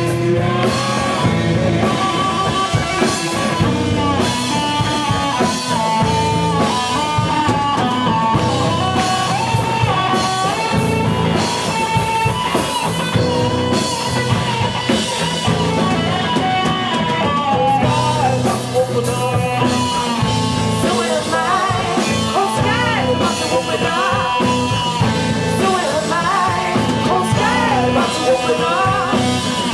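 Live rock band playing an instrumental passage between sung verses: drum kit, guitar and a wavering melodic lead line, with no words.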